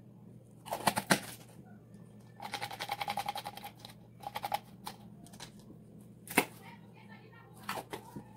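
Wooden stirring stick scraping and clicking against a plastic cup while glitter is mixed into epoxy resin, in quick runs of rapid ticks, with one sharp tap a little after six seconds in. A steady low hum underneath.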